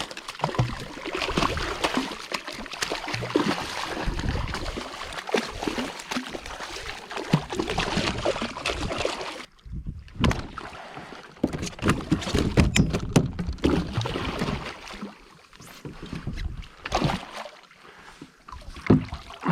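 Water sloshing and splashing against a fishing kayak, mixed with many short knocks and rattles, with a brief break about halfway through.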